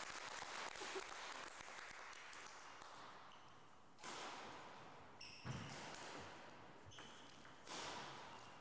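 A faint badminton rally on a wooden court in a large hall: three sharp racket strikes on the shuttlecock, each ringing on in the hall's echo, with brief shoe squeaks on the floor between them, over steady tape hiss.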